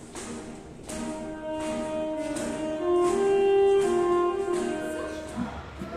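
Saxophone playing long, held melody notes over a steady beat of soft taps, with the notes growing louder in the middle.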